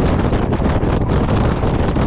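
Heavy wind buffeting on the microphone of a Honda Civic Type R FK8 at track speed, a steady rushing roar with constant flutter. Underneath it is the car's running noise.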